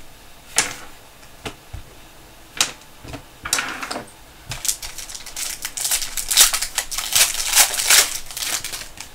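A plastic trading-card pack wrapper being handled and torn open: a few sharp separate rustles, then a dense run of crinkling and crackling over the second half.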